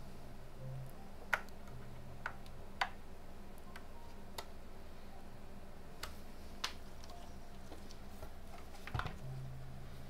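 Scattered small plastic clicks and ticks from the moulded plastic case of a G-scan3 scan tool being gripped and flexed by hand while its housing is pried apart; about seven clicks over ten seconds, with a cluster near the end.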